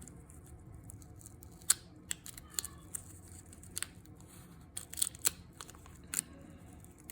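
Wax-paper wrapper of a 1970 Topps baseball card pack being peeled open: scattered sharp crackles and snaps, the loudest about two seconds in and a cluster near five seconds.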